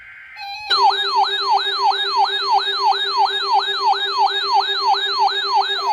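Electronic siren sounding in fast, repeated falling sweeps, about two and a half a second, over a steady lower hum-like tone. It comes in sharply just under a second in, after a short steady beep.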